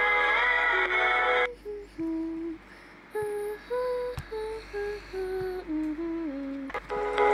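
Background music. A full arrangement plays for about a second and a half, then gives way to a sparse, soft melody of single held notes stepping up and down, and the full music returns just before the end.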